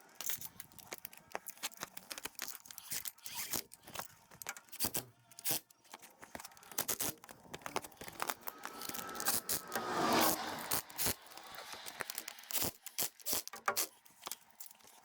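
Hand work on metal parts: irregular clicks, light knocks and scrapes of tools and components being handled, with a louder stretch of scraping about two-thirds of the way in.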